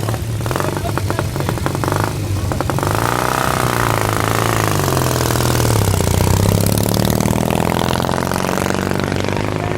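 Motorcycle engine running and revving: the pitch rises and falls a few seconds in, and the engine gets loudest around six to seven seconds in.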